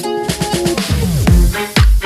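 Background electronic dance music, with falling bass sweeps and a heavy beat that comes in over the second half.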